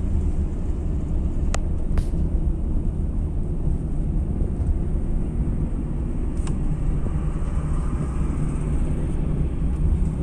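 Steady low rumble of engine and road noise inside a Suzuki car's cabin as it drives along a highway, with a few brief sharp clicks about one and a half, two and six and a half seconds in.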